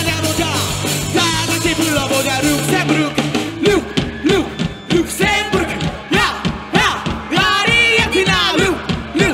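Live rock band with a lead vocal sung into a microphone through the PA: guitars, bass and drums under fast, bending vocal lines. About three and a half seconds in, the held bass notes drop away and a punchy, regular drum beat carries the voices.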